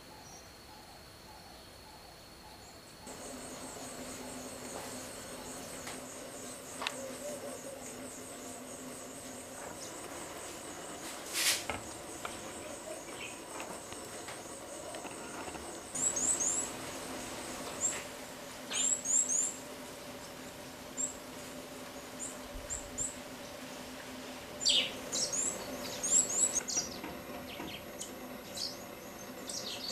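Outdoor bird-hide ambience: a steady, high insect buzz that starts about three seconds in, a single sharp click near the middle, and short bursts of quick, high chirps from birds through the second half.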